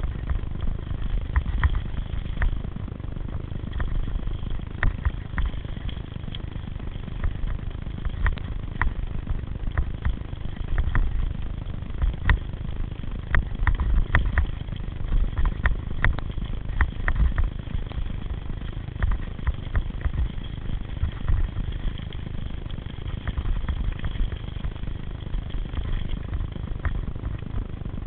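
Bicycle riding over a bumpy dirt forest singletrack: a steady low rumble of tyres and wind on the microphone, with frequent irregular clicks and rattles as the bike jolts over roots and stones.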